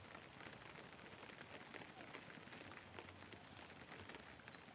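Near silence: faint outdoor background with light ticking and a couple of faint high chirps near the end.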